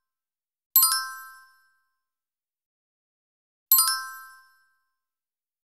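Bright chime dinging twice, about three seconds apart; each strike rings out and fades within about a second.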